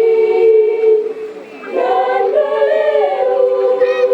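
A choir singing long, held notes, breaking off briefly about a second and a half in before starting the next phrase.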